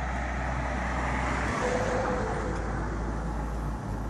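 Road vehicle passing by: tyre and road noise swells to a peak about halfway through, then fades, over a steady low hum.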